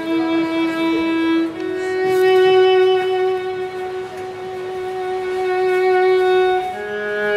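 Violin playing slow, long-held notes, stepping up in pitch about one and a half seconds in and again near the end, where a lower note joins.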